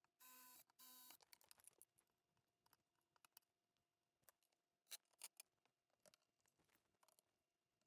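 Very faint: a DeWalt cordless drill runs in two short bursts near the start, then only scattered light clicks and taps of handling.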